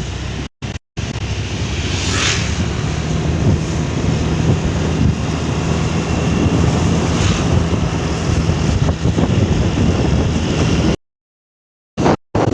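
Wind buffeting the microphone over a steadily running vehicle engine with a low hum. The sound cuts out briefly twice near the start and for about a second near the end.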